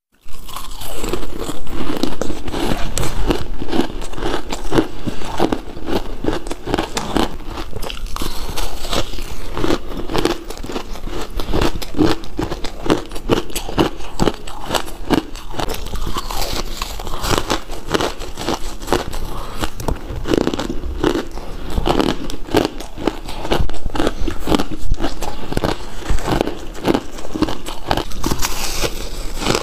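A person biting into and chewing clumps of crumbly purple ice: a close, dense run of crisp crunches and crackles, several to the second.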